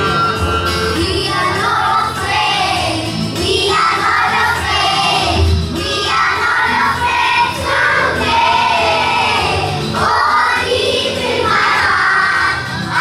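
A song with instrumental backing and singing, children's voices among the singers.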